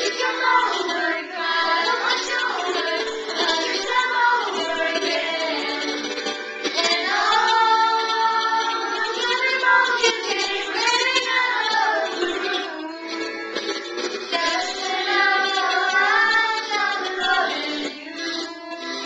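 Several young girls singing a song together, with music playing behind them.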